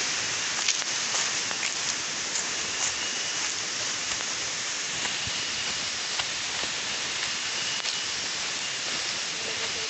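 A small forest stream and cascade running: a steady rushing hiss with a few faint ticks over it.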